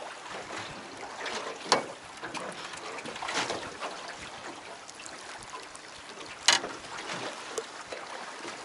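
Water sloshing against a boat, with two sharp knocks, one a little under two seconds in and a louder one past six seconds: blows to a hooked cobia's head to kill it at the side of the boat.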